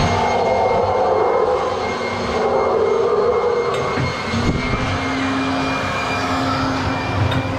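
Dark-ride monorail car running along its track through the cave: a steady mechanical hum and rumble. A new low hum comes in about halfway through.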